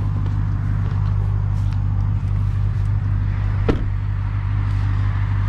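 2021 Ram 1500 TRX's supercharged 6.2-litre Hemi V8 running at low speed with a steady low drone, and a single sharp knock a little before four seconds in.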